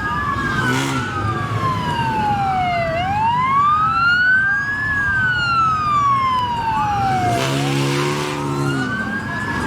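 Police car sirens on a slow wail, the pitch rising and falling over several seconds, with more than one siren overlapping. Car noise runs underneath, swelling briefly near the end.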